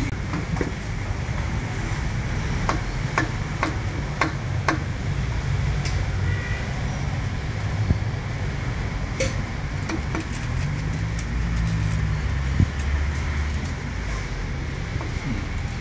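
Cleaver chopping poached chicken on a thick round wooden chopping block. A run of about five sharp chops comes roughly two a second a few seconds in, and a few more scattered chops follow later. A steady low rumble runs underneath.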